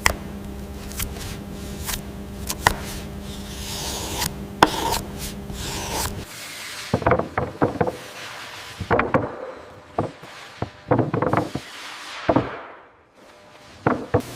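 Factory machinery hums steadily with scattered clicks, and the hum cuts off about six seconds in. Irregular clusters of wooden knocks, clacks and rubbing follow as wooden panels are handled.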